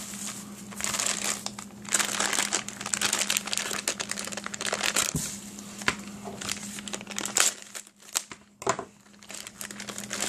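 Clear plastic bags and bubble-wrap packaging crinkling and rustling in irregular bursts as they are handled and opened, with a lull near the end broken by a couple of sharp clicks. A faint steady hum runs underneath.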